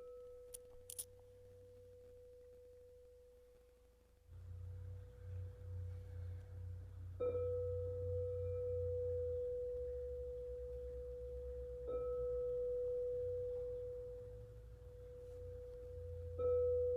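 Quartz crystal singing bowl ringing one steady tone, struck four times: at the start, then about seven, twelve and sixteen seconds in, each strike renewing the ring. A low hum sits underneath from about four seconds in.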